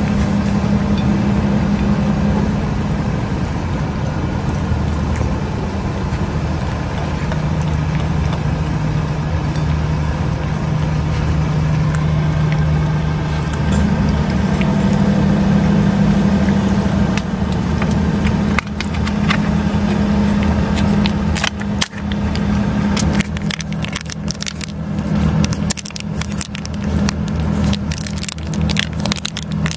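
A steady low engine hum, as of a vehicle idling, that drops in pitch a few seconds in and rises back about halfway through. In the last several seconds, quick crinkling clicks of a plastic cat-treat pouch being squeezed.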